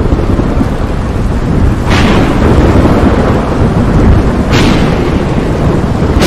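Thunderstorm sound effect: a loud, continuous rumble of thunder over rain, with a sharp thunder crack about two seconds in and another near the end.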